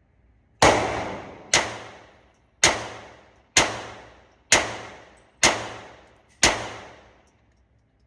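Seven .22 LR pistol shots fired from a Ruger pistol at a steady pace of about one a second, each a sharp crack followed by a decaying echo lasting most of a second.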